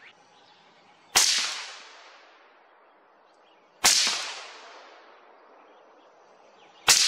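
Three rifle shots from a suppressed .223 Remington AR-style rifle, each a sharp crack followed by a fading echo, about three seconds apart. These are sighting-in shots at 100 yards with Remington 50-grain AccuTip-V ammunition.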